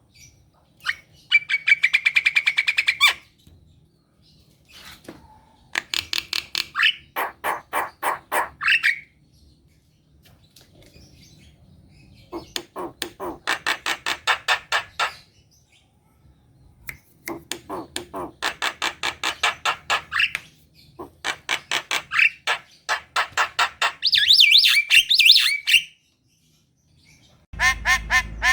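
Javan myna (jalak kebo) calling in about five bursts of rapid, harsh repeated notes, each burst two to four seconds long with short pauses between. A different sound cuts in near the end.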